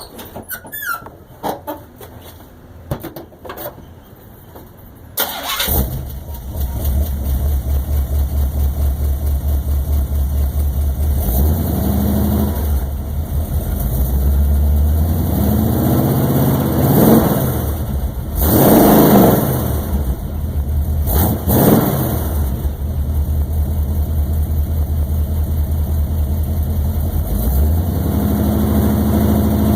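Stock Chevy 400 small-block V8 with Hedman headers and true-dual exhaust (no crossover pipe) through 30-inch Patriot Smitty mufflers. A few light clicks come first, then the engine starts about five seconds in and settles into a pulsing idle. Several throttle blips follow, rising and falling, the biggest about two-thirds of the way through, and the idle steps up near the end.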